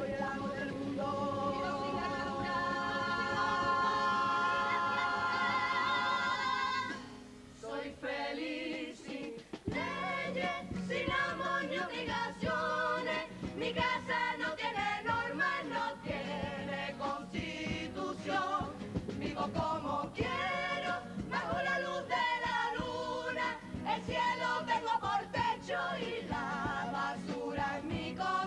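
Carnival comparsa choir singing with Spanish guitars and drum: a long held chord for about the first seven seconds, then a brief drop, then the choir and a rhythmic accompaniment resume with a moving melody.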